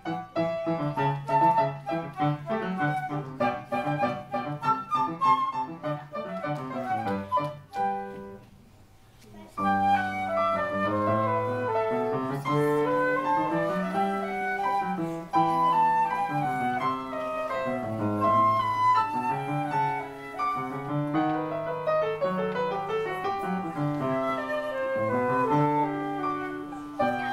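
Flute and piano playing a duet, the flute carrying the melody over piano accompaniment. The music stops briefly about eight seconds in, then starts again.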